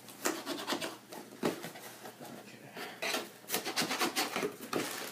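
Cardboard box being opened and bags of plastic building blocks being handled: irregular rustling, rubbing and clicking, with a few sharper knocks.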